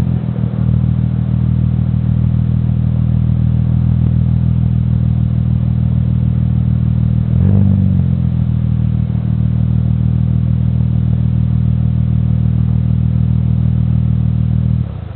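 Audi B5 S4 twin-turbo V6 idling steadily through a custom 3-inch Magnaflow exhaust, with one quick rev blip a little past halfway. The engine stops near the end.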